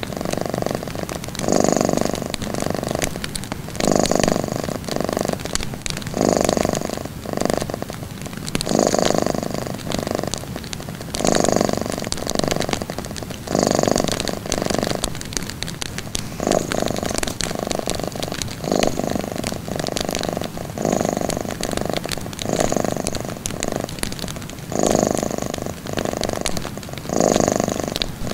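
Domestic cat purring, each purr swelling and fading in an even rhythm about every two and a half seconds, the rise and fall of its breathing.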